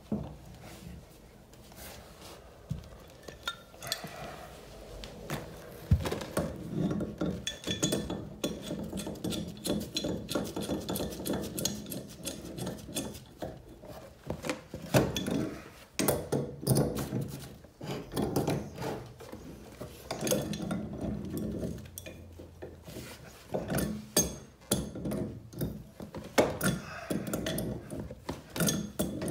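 Irregular metal clinks, knocks and scraping as a brass steam radiator valve is fitted onto its supply pipe by hand and then turned with a steel pipe wrench.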